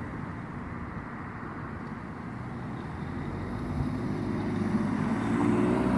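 Car engine pulling away through an intersection over a steady hum of street traffic, its engine note growing louder and rising slightly in pitch over the last few seconds.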